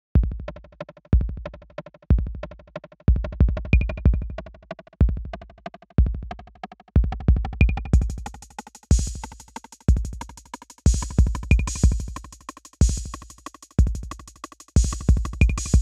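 Synthstrom Deluge groovebox playing a laid-back electronic beat in 3/4 time. A deep kick drum hits about once a second, sometimes in quick runs of three, under fast ticking percussion. A bright, hissy high layer joins about halfway through.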